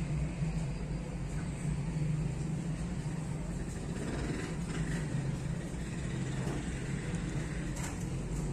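A steady low hum, with faint rustles of satin fabric being handled as it is hand-sewn.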